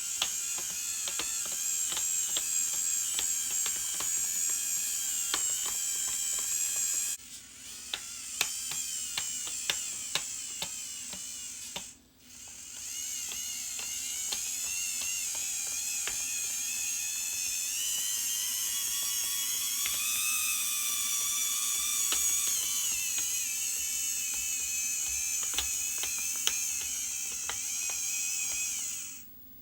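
Small electric motors and plastic gearboxes of RC construction models whining as they drive and work, with many ticks and clicks through it. The whine climbs in pitch around the middle, then settles, and cuts out briefly twice.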